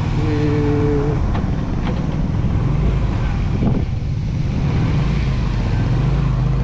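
Motorcycle engine running at low speed with wind noise on the microphone, a brief rise in engine pitch a little before the fourth second. A short two-note steady tone lasting about a second sounds near the start.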